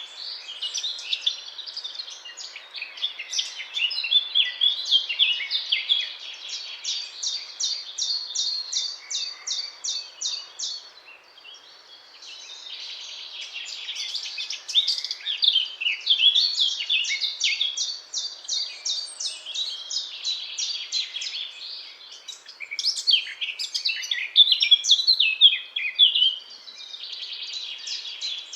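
Eurasian blackcap (Sylvia atricapilla) singing: long runs of fast, high warbling phrases, with a short break about twelve seconds in.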